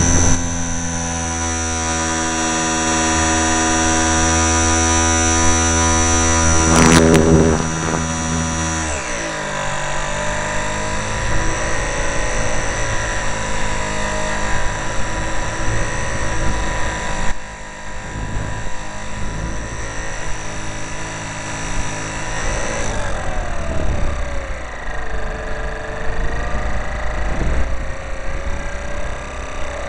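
Motor and propeller of a small radio-controlled airplane, heard from a camera mounted on the plane, with wind rushing over the microphone. The motor holds a steady high pitch, then throttles back about nine seconds in, and its pitch falls and wavers with throttle changes for the rest.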